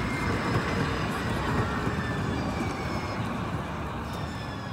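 San Francisco Muni light-rail train running past on street tracks: a steady rumble with a faint high whine that slowly falls in pitch.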